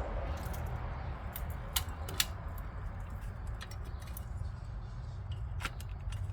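A few scattered sharp clicks and light handling sounds over a steady low hum.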